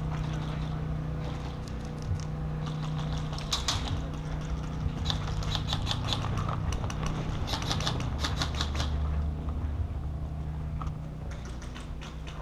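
Airsoft guns firing, heard as several rapid bursts of sharp clicking between about three and nine seconds in, over a steady low hum.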